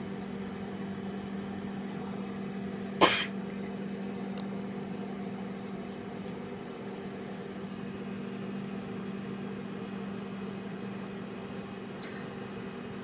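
Microwave oven running with a steady hum. About three seconds in, a single short, loud burst cuts in briefly over it.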